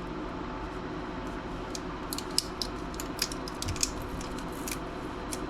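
Light, scattered clicks and ticks of small laptop parts being handled, bunched together from about two seconds in, over a steady low hum.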